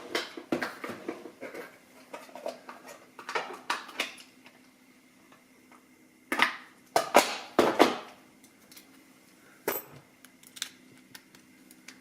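Small metal parts clicking and clinking as a brass padlock is handled and worked on to take it apart. The clicks come in scattered knocks, with a louder cluster about six to eight seconds in and a single sharp click near ten seconds.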